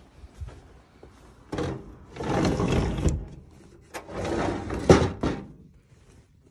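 A sliding window rolled shut along its track in two long sliding runs, the second ending in a sharp knock about five seconds in as the sash meets the frame.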